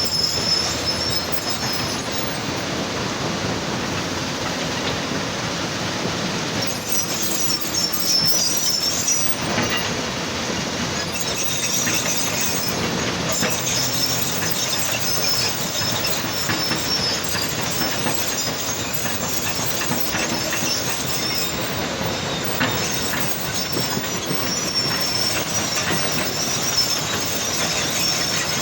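Heavy machinery running steadily, with high, thin squealing tones coming and going over dense machine noise.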